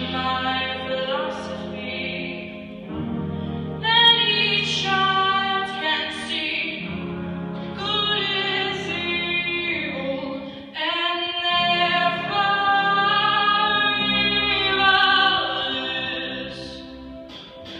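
A female solo voice sings long, held notes with vibrato in phrases, with a choir and accompaniment sustaining chords beneath.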